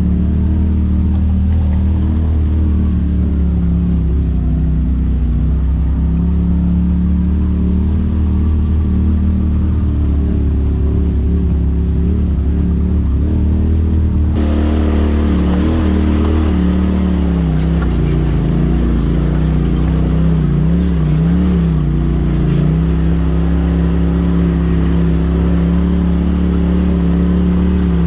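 Polaris RZR side-by-side's engine running at low trail speed, heard from on board. About halfway through the sound changes abruptly and turns brighter, and the engine pitch then rises and falls as the throttle is worked.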